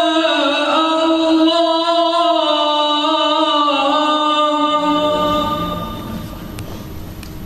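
A man reciting the Qur'an in drawn-out melodic style, holding and ornamenting one long phrase that winds down in pitch and fades out about five seconds in. After that there is only low room noise.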